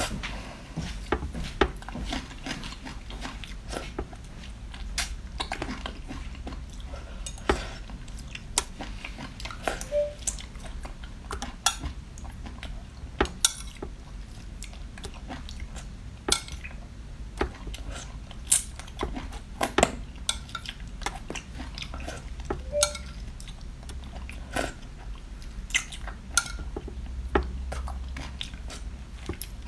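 Eating sounds at a seafood meal: irregular sharp clicks and clatters of utensils and dishes, with chewing, over a low steady hum.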